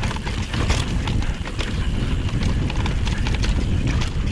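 Mountain bike clattering and rattling over rough trail ground, with many irregular knocks and clicks, over a steady rumble of wind on the microphone.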